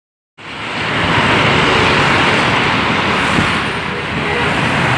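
Fast highway traffic on a toll road: buses and cars passing at speed, with steady tyre and engine noise. It cuts in abruptly about half a second in.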